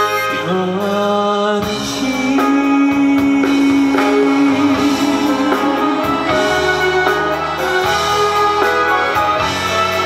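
A male trot singer sings live over a band with acoustic guitar, keyboards and drums.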